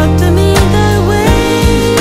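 Background music: a song with a sung melody over a steady beat.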